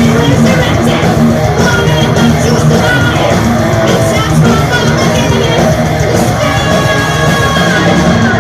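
Heavy metal band playing live at full volume: distorted electric guitars, drums and high yelled vocals.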